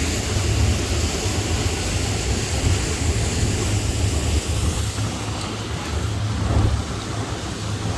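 Wind buffeting the microphone on a moving motorboat: a steady rushing hiss over a heavy, uneven low rumble.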